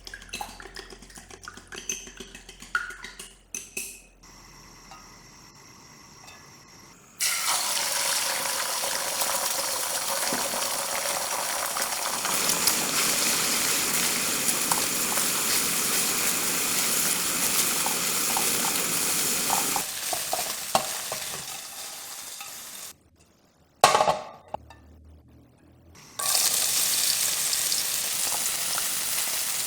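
Food frying in hot oil in a pan, a steady loud sizzle with the scrape and tap of a spatula stirring. It starts about a quarter of the way in and dies away briefly near the end, where a single loud knock sounds, then sizzles again.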